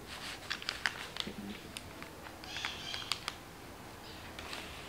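Light, scattered clicks and soft crinkling of a thin plastic mailer bag as a handheld battery-powered mini bag sealer is pressed and worked along its edge.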